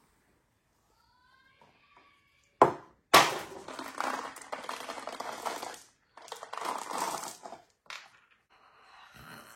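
Two sharp knocks, then crackling, crunching handling sounds in two stretches of a few seconds each, with a short click between them.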